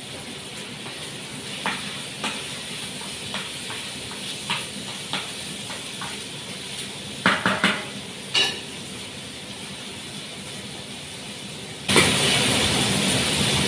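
Chicken pieces sizzling steadily in a frying pan, with a wooden spatula knocking and scraping against the pan a handful of times, several in quick succession partway through. Near the end a much louder steady hiss cuts in suddenly.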